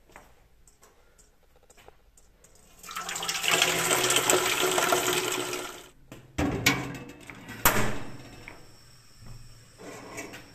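Water pouring into a steel frying pan for about three seconds, then a couple of sharp metal knocks as the pan is handled.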